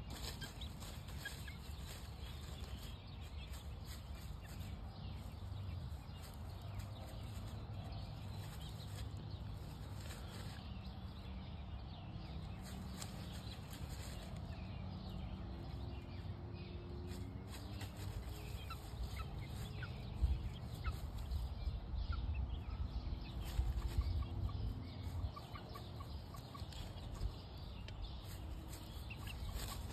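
Young hens clucking in low, short calls while foraging, over a low rumble that grows louder about two-thirds of the way through.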